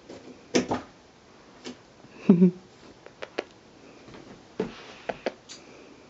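A few scattered light knocks and taps, with a short, louder low sound about two and a half seconds in.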